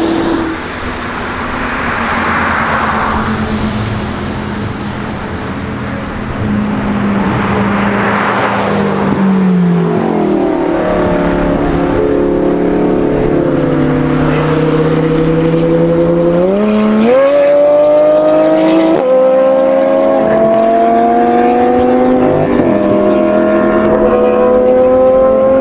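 Several sports car engines, a white Porsche 911 among them, driving past and accelerating. The engine notes drop in pitch as the cars pass about ten seconds in, then climb, with a sharp rise around seventeen seconds.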